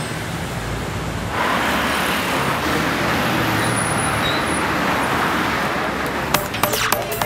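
Steady city road traffic noise, a continuous wash of passing vehicles that grows louder about a second and a half in. Near the end a run of sharp clicks starts over it.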